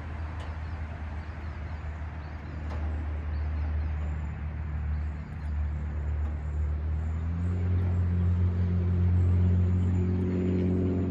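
An engine running with a low, steady drone that grows gradually louder, loudest near the end.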